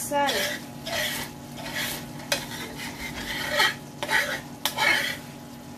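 A metal spoon stirring and scraping a thick rice mixture in a nonstick skillet, in repeated strokes about every half second, with an occasional sharp clink of the spoon on the pan. The stirring stops shortly before the end, leaving a steady low hum.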